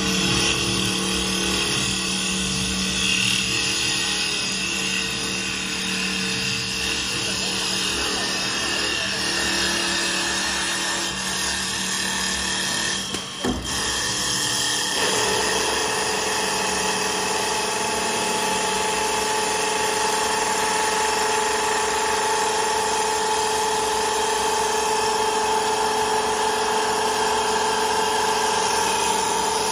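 STYLECNC STL1530-A wood CNC lathe running, its spinning flap sanding wheel working a turned wooden spindle, with steady machine noise and the hiss of wood being worked. A brief break comes about halfway through, and after it a steady whine stands out.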